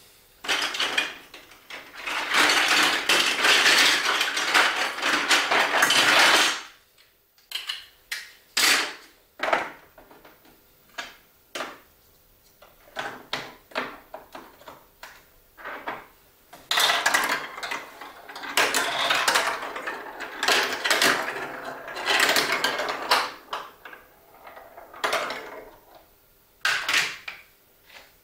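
Clattering and clicking from a Duplo-block marble run: separate sharp knocks and clicks, with two long stretches of continuous rattling, one a couple of seconds in and one past the middle.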